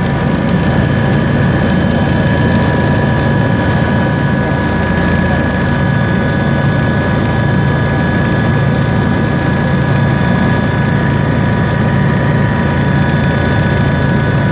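Steady, loud engine noise, unchanging throughout, with a low drone and a few constant high whining tones on top.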